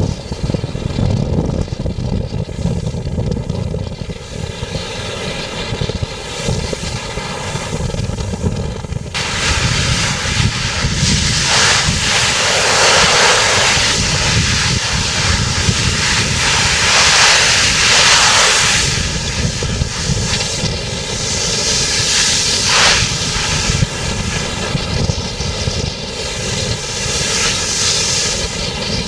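Ship's engine drone, a steady hum of several even tones, under heavy wind buffeting on the microphone in a strong wind. Surges of rushing hiss come and go several times from about ten seconds in.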